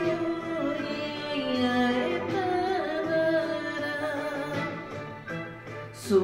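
A man singing a Japanese enka ballad in a slow, held melody over instrumental accompaniment. The voice drops away briefly near the end between phrases.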